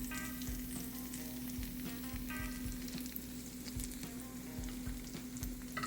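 Egg-battered slices of chocolate chip loaf sizzling steadily as they fry in oil in a pan, browning into French toast.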